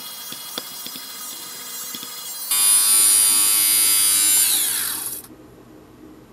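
Xiaomi Mijia lint remover's small electric motor and spinning cutter running on fabric, with a few clicks. About two and a half seconds in it runs much louder with a high whine, then winds down with a falling whine and stops about five seconds in.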